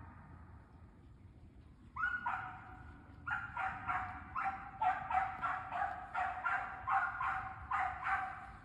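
Beagle baying: a run of short, repeated barks, about two a second, starting about two seconds in.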